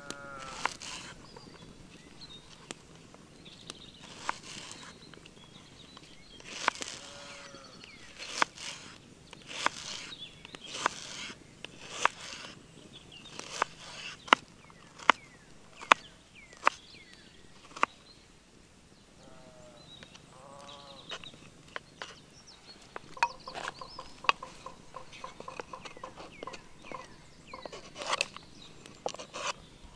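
Irregular sharp knocks and cracks, coming about once a second in the middle stretch, with a few short squeaky whines between them.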